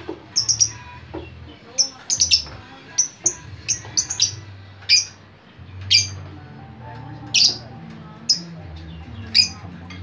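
Lovebird chirping: short, sharp, high-pitched calls, about seventeen in all, some in quick runs of two or three.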